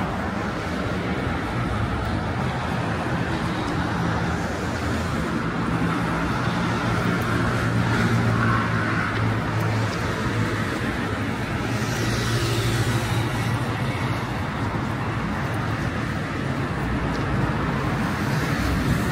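Steady road traffic on a busy city avenue: car engines and tyre noise, with a vehicle's engine hum swelling through the middle and a tyre hiss as one passes close.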